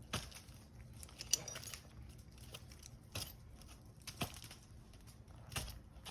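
Climbing spurs' steel gaffs stabbing into a pine trunk as the climber steps on the tree: five sharp knocks, roughly one every second or so.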